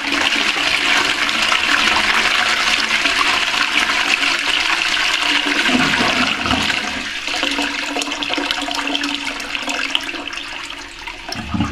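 A 6/4-litre toilet flushing: a loud rush of water through the bowl that eases after about seven seconds into a lower, steady rush of draining and refilling.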